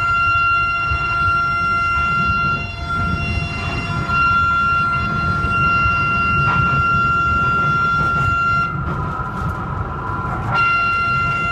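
London Underground Central Line train running in a tunnel, its wheels giving a loud, steady high-pitched screech over the low rumble of the train. The screech breaks off briefly twice, once about a quarter of the way in and again near the end.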